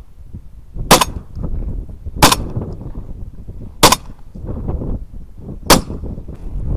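Four shotgun shots, one every second and a half or so, with low wind rumble on the microphone between them.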